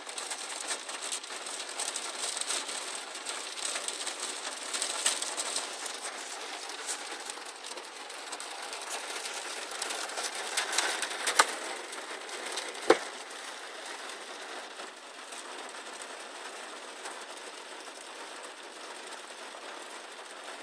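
Heavy rain pattering on the roof and glass of a car, heard from inside the cabin. The patter is densest in the first third and eases in the second half, with two sharper knocks a little past halfway.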